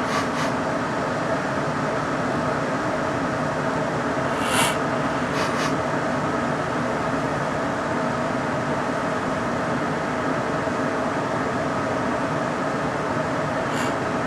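Steady hum of room air-handling machinery, several faint fixed tones over an even noise, with a short hiss about four and a half seconds in.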